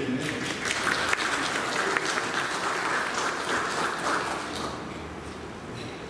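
Congregation clapping, many hands together, dying away after about four and a half seconds.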